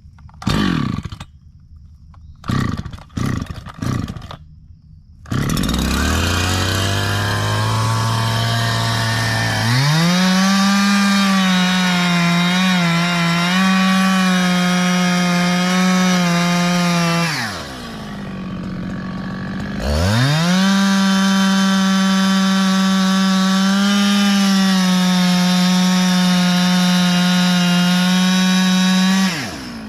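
Two-stroke chainsaw pull-started: several short pulls on the starter cord, then the engine catches and idles. It is run at steady full throttle twice, for about seven and nine seconds, dropping back to idle in between.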